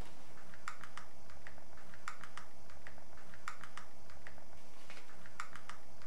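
Metal nurse's belt buckle clicking as its two halves are handled and fastened: sharp light clicks in small clusters of two or three, spread irregularly, over a low steady hum.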